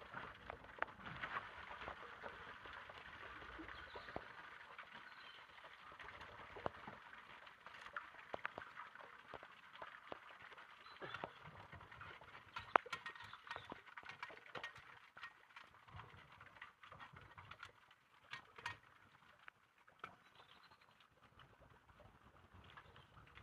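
Scattered clicks, knocks and scrapes of a steel hook tool against a metal storm-drain grate and paving stones, with rubber boots shuffling on wet pavement, over a faint steady hiss. The sharpest click comes just past halfway.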